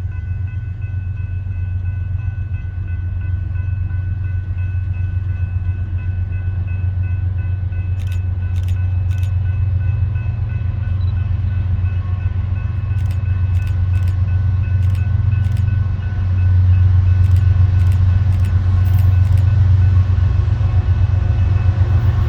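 A train passing with a steady low rumble that builds slowly and is loudest near the end, a few faint steady high tones above it, and sharp clicks coming in from about a third of the way through.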